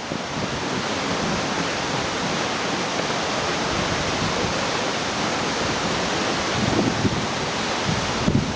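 Waterfall pouring with strong flow: a loud, steady rush of water.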